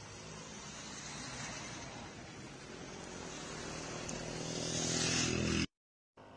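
A motor vehicle's engine running and growing steadily louder as it approaches. It cuts off suddenly near the end, and after a moment of silence only a faint background remains.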